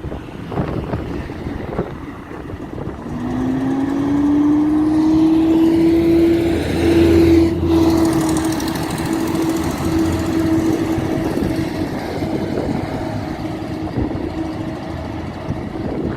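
Bus engine and drivetrain running under way: a whine rises in pitch for a few seconds, then holds steady over a low hum. Scattered ticks run through it, the ticking that the owner puts down to a failed exhaust manifold.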